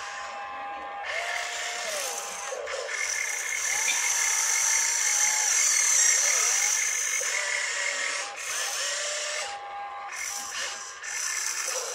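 Electric motors of an RC excavator whining as the boom and bucket move, the pitch rising and falling with the work and cutting out briefly several times.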